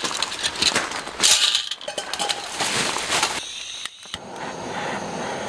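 Charcoal lumps and a wire grill grate clinking and knocking in a small steel brazier as the fire is laid. A little over halfway through this gives way to a steady hiss as a gas torch is played onto the charcoal to light it.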